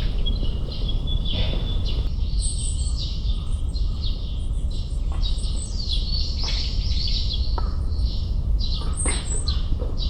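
Small birds chirping and twittering in quick high calls, over a steady low rumble.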